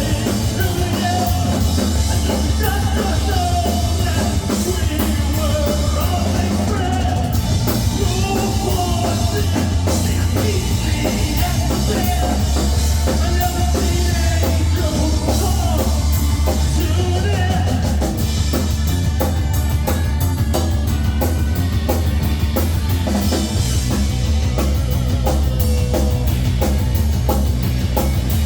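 A band playing loud rock music: a drum kit over a heavy, steady bass, with a wavering melody line through roughly the first half.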